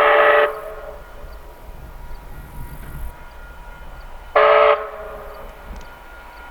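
Steam whistle of Canadian Pacific 4-6-4 locomotive 2816 blowing a chord of several tones: a long blast that cuts off about half a second in, then one short blast about four seconds later.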